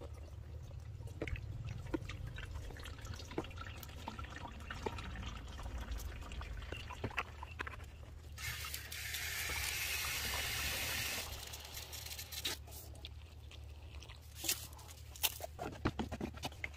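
Liquid being poured and dribbled while herbicide concentrate is mixed into a 16-litre sprayer tank, with small knocks and drips, and a steady rush of liquid for about three seconds midway.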